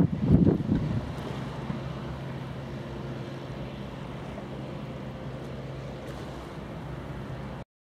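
Steady drone of a boat's engine, with wind buffeting the microphone in the first second; the sound cuts off suddenly near the end.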